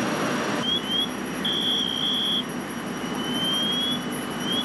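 High-pitched electronic alarm sounding in short rising chirps and held beeps, starting about half a second in, with a long held tone in the middle, a slowly rising tone later and a quick run of chirps near the end. Under it runs the steady rumble of idling fire engines.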